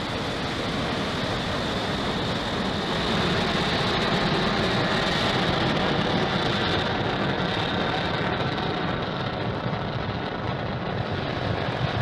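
Falcon 9 first stage's nine Merlin 1D engines firing during ascent, heard as a steady, dense rocket-engine noise that does not let up.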